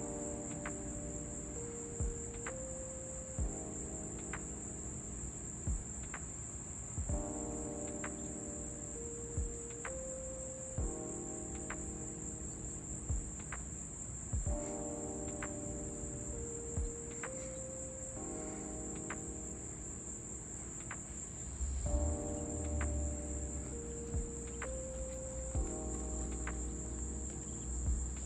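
Steady, high-pitched chorus of crickets. Scattered sharp ticks and a repeating pattern of pitched tones sound underneath, and a low rumble, likely distant thunder, comes in about three quarters of the way through.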